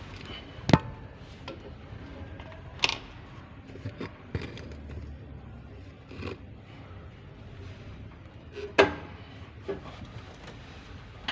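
Irregular sharp knocks and clicks of hand tools and parts being handled against a vehicle's underbody, about seven in all, the loudest about a second in and near nine seconds.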